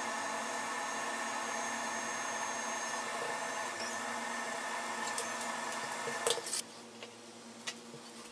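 Small screws being driven by hand with a small screwdriver into the brass-faced wooden stock of a carpenter's square, with a few light clicks of metal on metal and wood. A steady background hum runs beneath and drops away about six and a half seconds in.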